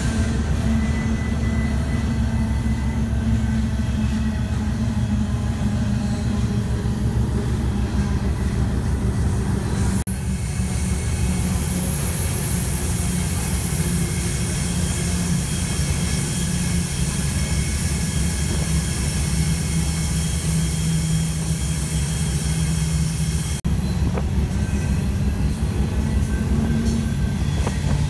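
Moving freight train heard from aboard one of its cars: a steady, loud rumble of wheels and car body on the rails, with thin high squealing tones above it. The sound breaks off abruptly twice, about ten seconds in and again near the end, where the recording is cut.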